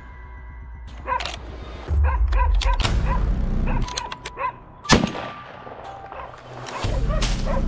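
Hunting dogs barking repeatedly during a boar hunt, with one sharp gunshot about five seconds in. Bouts of low rumble come and go underneath.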